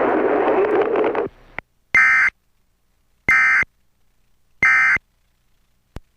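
Emergency Alert System End of Message signal: three short bursts of warbling SAME digital data tones, each under half a second and about a second and a half apart, marking the end of the alert. Before them, a stretch of noisy, garbled broadcast audio cuts off about a second in, and a click comes near the end.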